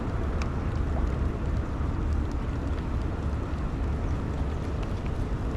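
Steady low rumble, like wind on the microphone, with a few faint ticks.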